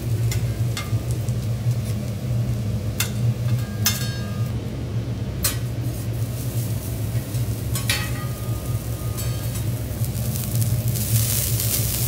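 Cooking on a hot teppanyaki steel griddle: metal spatula and fork clink and scrape on the plate several times, some strikes ringing briefly, over a steady low hum. Near the end a louder sizzling hiss rises as bean sprouts fry on the griddle.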